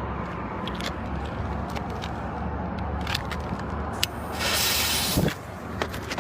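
Fireworks: scattered sharp pops and cracks, with a loud hissing spray lasting about a second from about four seconds in, over a steady low rumble.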